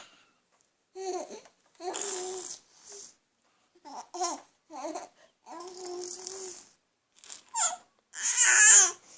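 Baby babbling in a string of short coos and a few longer drawn-out vowel sounds with brief pauses between them; the loudest comes near the end.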